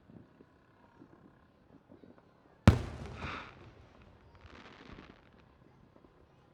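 A firework bursting with one sharp, loud bang a little before halfway through, followed by a fading hiss and crackle, and a fainter spell of hiss about two seconds later.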